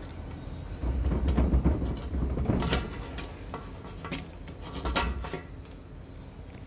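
Handling noise, a low rumble with light metallic clicks and clinks, in two spells: one of about two seconds starting a second in, and a shorter one near the end.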